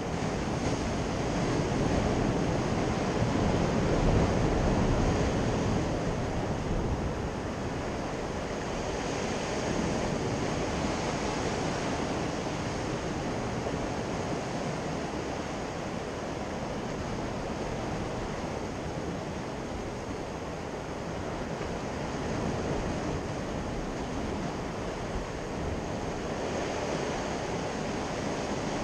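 Sea waves washing and breaking against shore rocks, a continuous surf noise that swells loudest a few seconds in and rises and falls with the waves.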